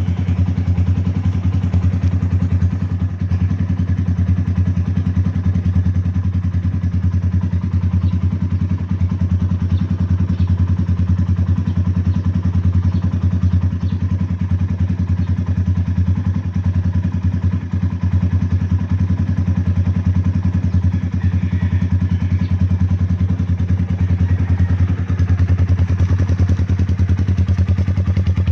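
Sigma 250 motorcycle engine, fitted with a modified intake manifold, idling steadily.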